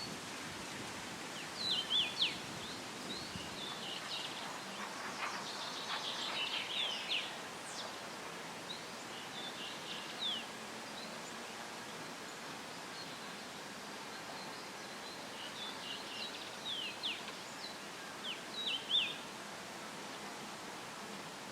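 Outdoor summer ambience: small songbirds chirping and twittering in short bursts, in clusters a few seconds apart, over a steady hiss of leaves rustling in a light breeze.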